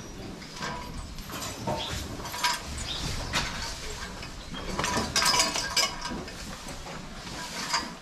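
Irregular metallic clinks and rattles of tie-stall chains and pipe stalls as dairy cows eat hay, mixed with the rustle of hay being spread, busiest a little past the middle.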